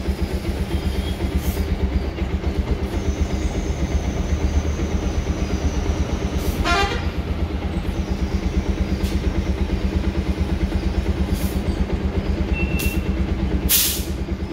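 Bajaj Pulsar 125's single-cylinder engine idling with a steady, even pulse; the owner says its auto choke is not working. A brief chirp sounds about seven seconds in, and a short hiss comes near the end.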